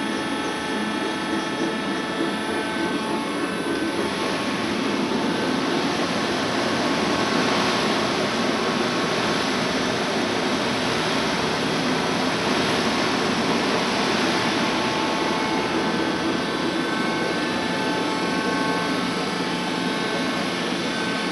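Worm screen centrifuge running at speed on its test run, driven by an electric motor through V-belts: a steady machine hum with several steady whines over it, swelling a little a few seconds in. It is running on newly replaced main drive and gearbox bearings, fitted to cure bad vibration.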